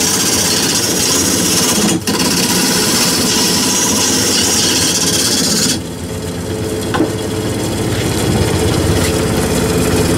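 Wood lathe spinning a large wooden blank while a turning gouge cuts into it: a steady rasping hiss of the cut over the hum of the lathe. The cut breaks off about six seconds in, leaving the lathe running, with a single click a second later.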